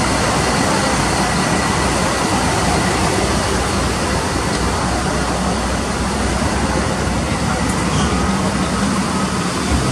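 Idling apron buses: a loud, steady engine rumble and hiss with no break.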